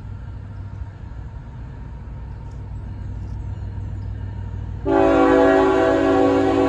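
CSX freight locomotive's air horn: one long blast, a chord of several notes, starts suddenly about five seconds in as the train nears the grade crossing. Before it, only a low steady rumble.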